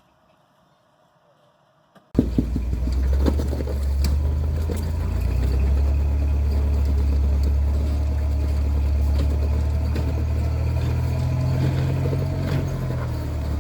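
After about two seconds of near silence, a vehicle engine cuts in abruptly and runs steadily at low revs, with scattered sharp clicks and knocks over it.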